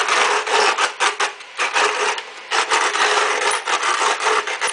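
Antique hand-cranked coffee grinder grinding coffee beans: a rapid, gritty crunching and rasping as the crank turns, easing briefly twice in the middle.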